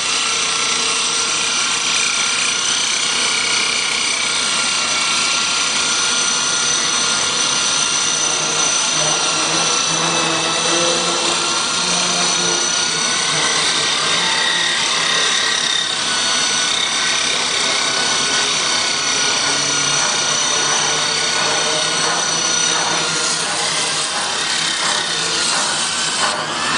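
Power drill running steadily with an electroplated diamond core bit grinding into hard material: a continuous high-pitched whine over a grinding hiss, which cuts off at the very end.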